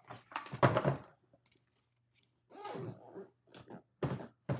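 Knocks and rustling from a Milwaukee Packout fabric tool bag being handled on top of a plastic Packout box: a cluster of thunks in the first second, then a few shorter knocks and rustles.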